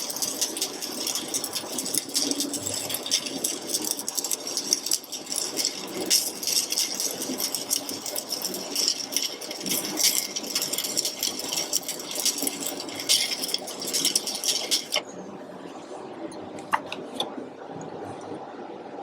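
Stick (shielded metal arc) welding arc crackling and sizzling steadily, then cutting off suddenly about fifteen seconds in when the arc is broken.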